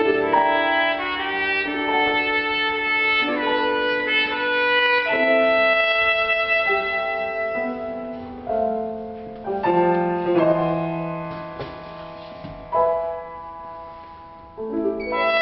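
Trumpet and grand piano playing a slow classical piece together, with sustained trumpet notes over piano chords. The music thins out and grows quieter through the second half.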